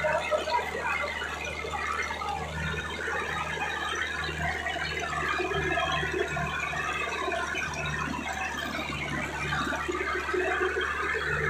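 Sonalika DI 750 III tractor's diesel engine working hard under heavy load, belching black smoke as it drags a double disc harrow through ploughed soil. A steady low drone with a rough, uneven noise over it.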